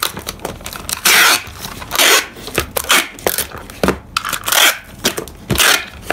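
Clear packing tape pulled off the roll of a handheld tape dispenser across a cardboard box, in several short, loud noisy pulls about a second apart, with small knocks of the dispenser and hands on the cardboard between them.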